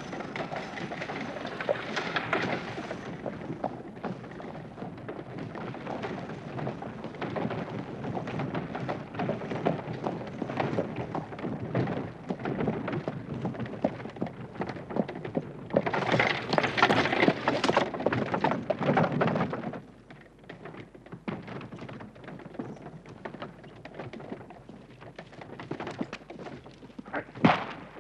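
Horse-drawn carriage on the move: hooves clip-clopping and the wooden-spoked wheels and coachwork rattling and crunching over a dirt track. It is loudest and brightest a little past halfway, drops off sharply about two-thirds of the way through, and there is one sharp knock near the end.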